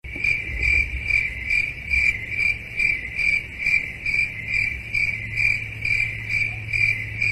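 Cricket chirping sound effect: an even, high-pitched chirp repeating about twice a second over a steady low hum.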